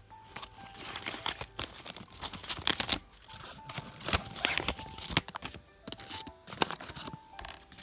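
Packaging crinkling and rustling in irregular sharp crackles as it is handled and torn open, over quiet background music.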